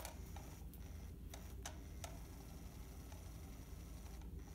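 SmartyKat electronic cat toy running under its nylon cover: a faint, steady high motor whine with irregular clicks and ticks from the mechanism and wand moving beneath the fabric.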